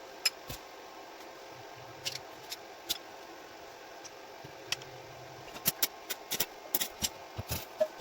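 Sharp clicks and light knocks: a few scattered ones, then a quick run of them over the last two and a half seconds, over a faint steady hum.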